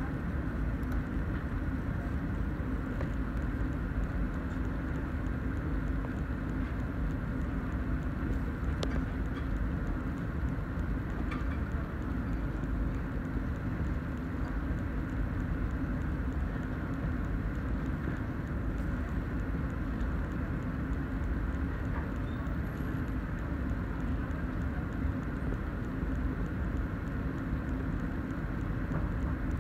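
Small stepper motor running continuously as it steps a clock hand around, giving a steady low buzz.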